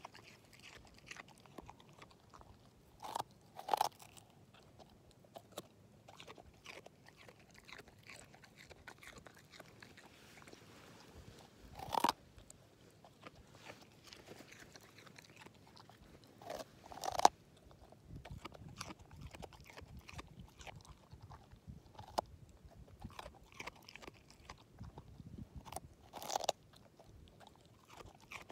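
An English Setter chewing a raw carrot: quiet, continual chewing broken by several sharp, louder crunches as it bites off pieces.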